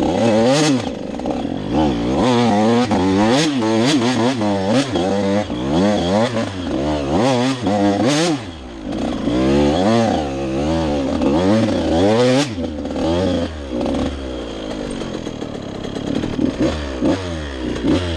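KTM 85 SX two-stroke dirt-bike engine being ridden, revved up and dropped back again and again in quick throttle bursts. Near the end it settles into lower, steadier running with smaller swings in pitch.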